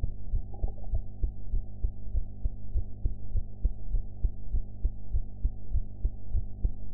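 A woman's heartbeat picked up at the chest: a steady run of low lub-dub thumps over a faint steady hum.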